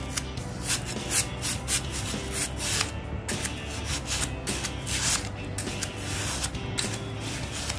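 Sandpaper wrapped on a stick rubbed in short, quick strokes against the cutting blade of a pet nail clipper, sharpening the edge.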